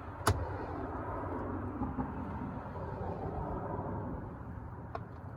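A sharp click a moment in and a fainter click near the end as a plastic speaker adapter bracket is handled and set against the car door's speaker opening, over steady outdoor background noise.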